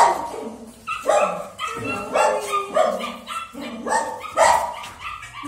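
Dog barking repeatedly, a run of short, loud barks about every half second to a second.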